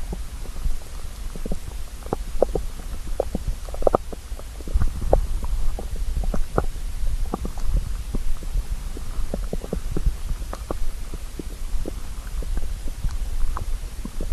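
Hungry human stomach growling: a steady low rumble with many short, irregular gurgles and pops on top.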